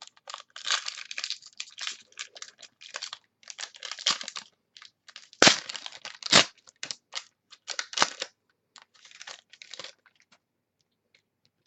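Foil wrapper of a trading card pack crinkling and tearing open, with cards handled: irregular rustling scrapes and two sharp snaps near the middle, dying away about ten seconds in.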